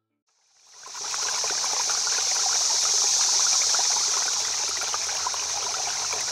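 Running water fades in over the first second and then runs steadily.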